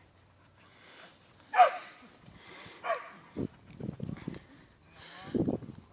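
Dog barking: two sharp barks about a second and a half and three seconds in, the first the loudest, followed by low rumbling noise near the end.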